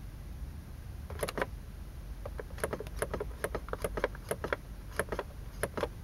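BMW E46 trip-reset button on the instrument cluster being clicked: two clicks about a second in, then a quick run of about fifteen clicks, pressed repeatedly to step through the hidden on-board computer test menu. A low steady hum sits underneath.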